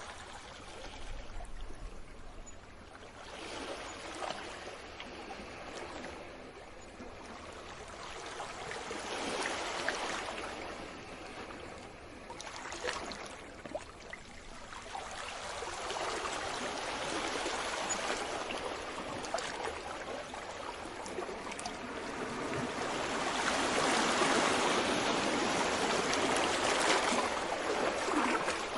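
Small sea waves washing onto the shore and draining back, swelling and easing every few seconds, with a larger, longer wash building near the end.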